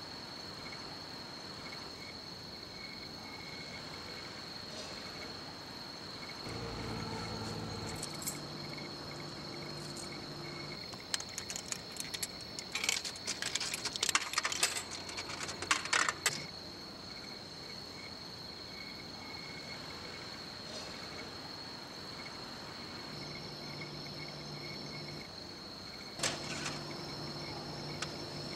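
Crickets chirping steadily. A low hum comes and goes, and a run of metallic clinks and jingling, like coins, fills the middle of the stretch.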